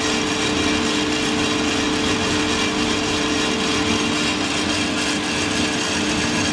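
Santoker R6, a 6 kg gas-fired drum coffee roaster, running steadily mid-roast before first crack: an even whirr of its fan, drum and burner, with two steady hum tones.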